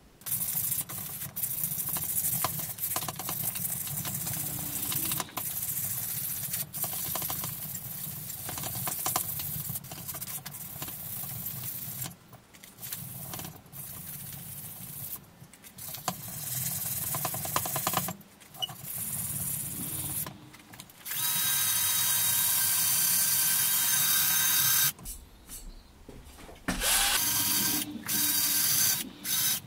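Electric drill spinning an abrasive sanding wheel against a stainless steel exhaust header to take the rust off. It is used in stop-start bursts, grinding unevenly at first. After about twenty seconds it gives a steady high whine for about four seconds, stops, and starts again near the end.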